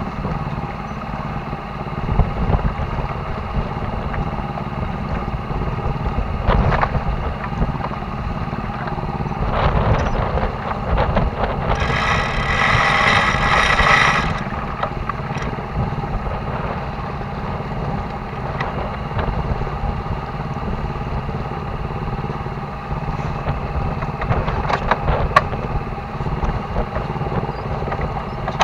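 Sailboat's engine running steadily under wind on the microphone. About twelve seconds in comes a loud rattle lasting about two seconds, and a few sharp clicks are scattered through, from the rigging and deck gear as the headsail is set.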